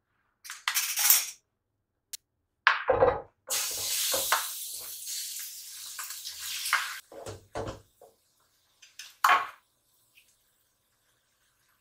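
Kitchen pots and dishes being handled, with several knocks and clunks. A steady hiss runs for about three seconds in the middle.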